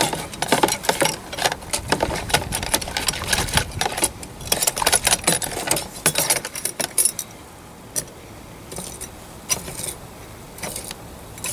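Small metal parts clinking and rattling together, busy for about seven seconds and then only a few scattered clicks.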